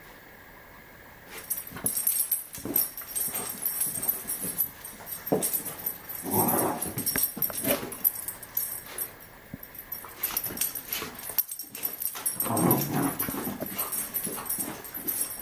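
Vizsla dog in a burst of hyper play, scrabbling and thudding about on carpet. The sounds start about a second in as a steady run of short knocks and rustles, with two louder, longer stretches near the middle and near the end.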